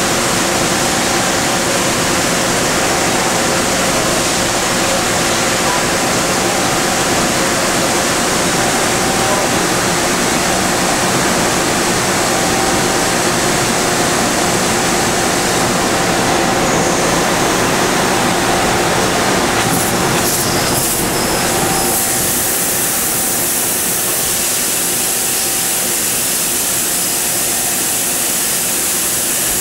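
Okuma MC-50H horizontal machining center running under power: a steady, loud hiss with a hum of several steady tones. About two-thirds of the way through, a few clicks are heard and the sound turns brighter and hissier as the low rumble drops away.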